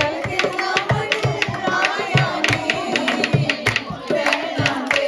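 Dholki music: a dholak drum beating a steady rhythm, about two to three strokes a second, with voices singing a folk-style song and hands clapping along.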